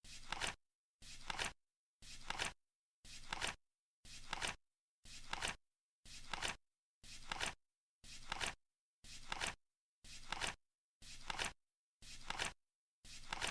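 Flip clock ticking over once a second, each flip a short rustle that ends in a sharp click, with silence between flips.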